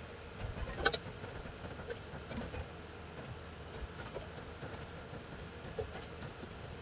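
Faint, scattered computer keyboard key taps as text is typed, with a sharper double click about a second in.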